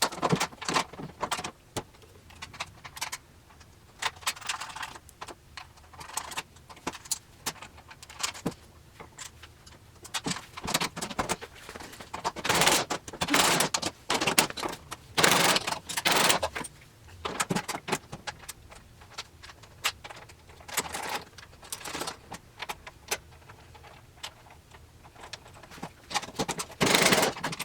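Metal parts and tools clinking and rattling against a steel tool cabinet in irregular spurts, with scattered sharp clicks and a few longer clattering bursts, the loudest in the middle and near the end.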